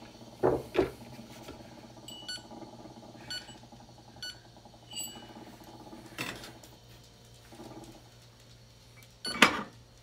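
Short electronic beeps, four of them about a second apart, and a few knocks and clatters as a digital coffee scale is handled and set down on an espresso machine's metal drip tray, the sharpest knock near the end, over a steady low hum.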